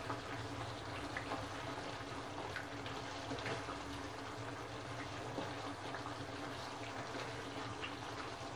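Red chicken curry with almond and chironji paste cooking in the pan, simmering and sizzling steadily, with a few faint ticks and a steady low hum underneath.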